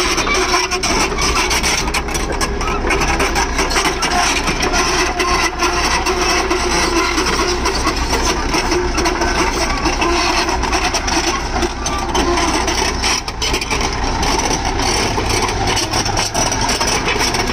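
Komatsu hydraulic excavator's diesel engine running steadily while the machine travels on its steel crawler tracks. The engine's low hum shifts higher about two-thirds of the way through.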